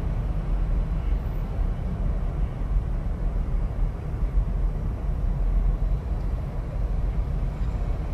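Steady low rumble of a car heard from inside its cabin while it sits almost still in traffic, with the engine idling.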